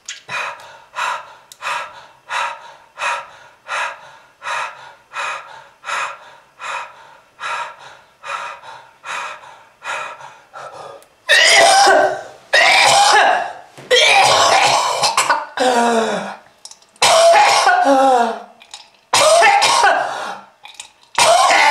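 A person in a long coughing fit. It starts with short, regular coughs about two a second. About halfway through they turn into much louder, harsher hacking coughs, some ending in a falling groan. It is a smoker's chronic cough.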